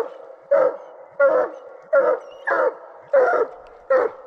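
Coonhound barking at the tree in a steady, evenly spaced chop, about seven loud barks, roughly one every two-thirds of a second. This is the tree bark of a hound that has its raccoon treed.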